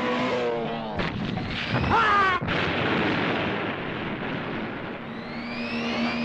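Cartoon sound effects: a car's steady engine whine with rising sweeps, a short falling whistle about two seconds in, then an explosion with a long rumble. The engine whine returns near the end.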